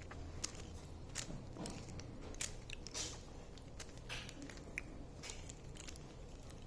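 Plastic Rubik's Cube being turned by hand: irregular clicks and short scraping rattles as its layers are twisted round.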